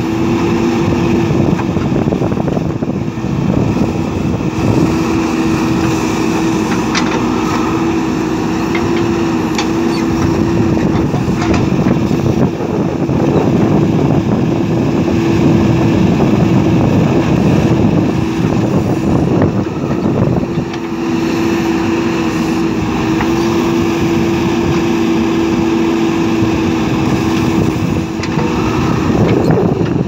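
JCB 3DX backhoe loader's diesel engine running under working load as the backhoe arm digs and swings. A steady whine holds over the engine rumble and breaks off for a few seconds a little past the middle.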